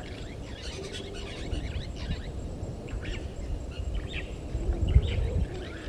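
Wild birds calling with many short, scattered chirps over a steady low rumble of background noise.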